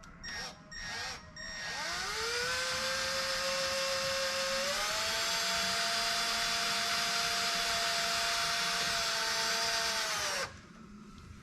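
Electric drill with a carbide bit drilling the 6 mm pin hole through a BMW M3's crankshaft hub at slow speed. Two short trigger blips, then the motor spins up and runs steadily, its pitch stepping up about halfway, before it stops suddenly near the end.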